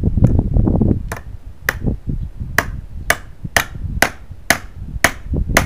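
A claw hammer driving a nail into a wooden board: about ten sharp metal-on-metal strikes at roughly two a second.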